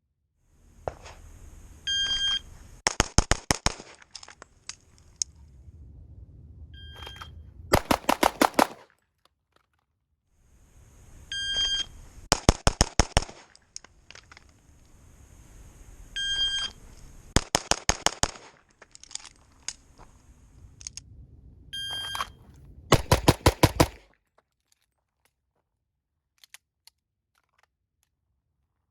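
Five rounds of a shot timer's beep, each followed about a second later by a fast string of about six pistol shots, as in Bill and Blake drills.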